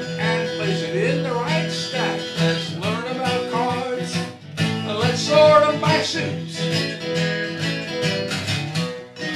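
Music: a country-style song led by acoustic guitar.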